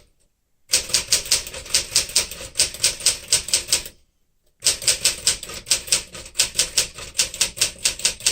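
1964 Smith-Corona Sterling manual typewriter being typed on at speed: rapid typebar strikes, about six a second, in two long runs, each broken off by a short dead-silent gap.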